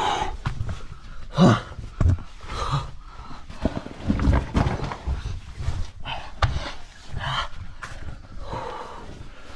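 Heavy breathing from someone moving through a cave passage, mixed with irregular scuffs, knocks and rustling of body and gear against rock.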